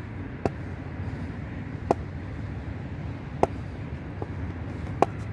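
Steady low outdoor rumble with four sharp knocks, about a second and a half apart.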